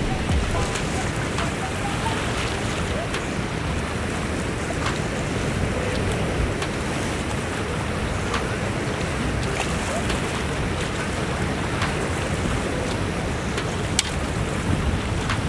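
Wind buffeting the microphone, a steady low rumbling rush, over the wash of lake water, with a few faint scattered ticks.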